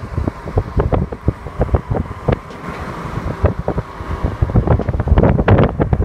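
Wind buffeting the microphone in irregular low rumbling gusts and thumps, heavier near the end.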